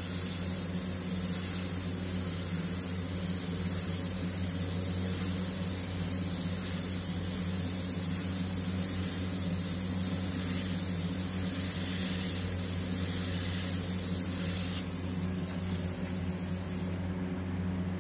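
Gravity-feed airbrush spraying paint in a steady airy hiss over a steady low hum; the hiss cuts off about a second before the end.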